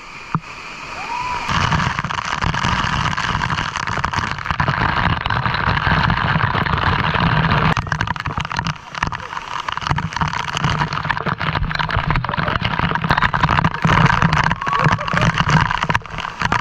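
Loud, steady rush of falling water at a waterfall, broken by many short crackles and knocks close to the microphone.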